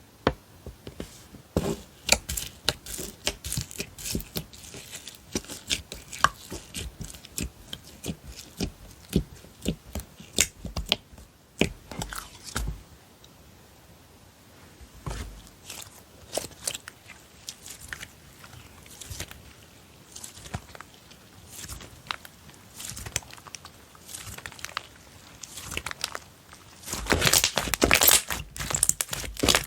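Slime being squeezed, poked and stretched by hand, giving off a run of sticky clicks and pops. It turns into dense, louder crackling near the end.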